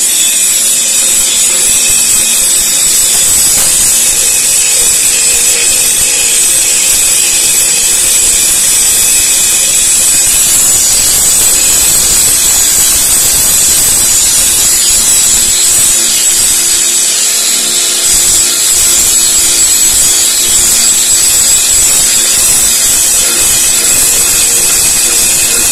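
Handheld electric angle grinder running steadily, its disc grinding the steel edge of a chaff-cutter blade to sharpen it, with a continuous high-pitched whine.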